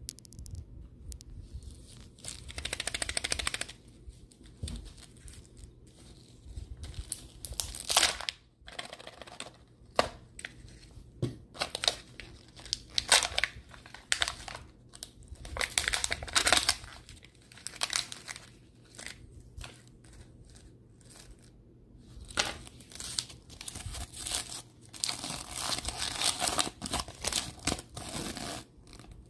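Rubber-gloved hands opening a Kinder Joy capsule: bursts of crinkling and tearing from its peel-off seal and wrapping, with a few sharp clicks. Near the end comes a longer stretch of crinkling as the folded paper instruction leaflet is opened.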